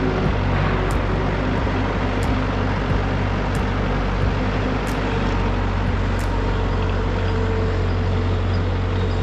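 An engine running steadily at a constant speed with a low, even hum, with faint high ticks recurring about once a second.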